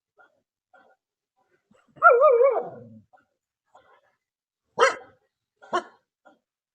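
A dog gives one loud wavering cry about two seconds in that slides down and trails off low, then two short, sharp barks about a second apart.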